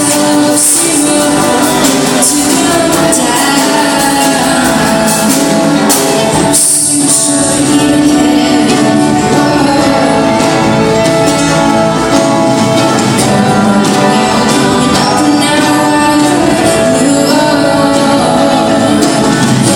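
A song: singing over instrumental backing, steady and loud.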